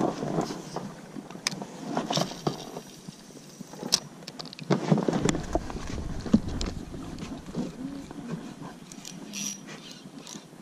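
Oars working in the rowlocks of an inflatable rowing boat: a few irregular knocks and scrapes, the biggest cluster about five seconds in, over a low rustle of water and handling.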